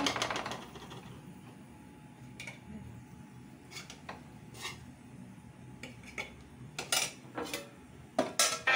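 A metal spoon clinks and taps against a steel kadhai and plate as curry is scooped out and served. The clinks are light and scattered, and come more often near the end.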